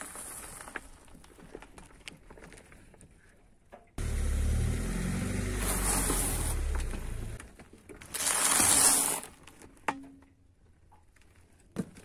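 A car tyre slowly rolling over and crushing food. Faint crackling of candy-coated chocolates cracking in the first few seconds, then the car's engine running low for about three seconds. About eight seconds in, a loud crunch as a stack of crackers breaks under the tyre.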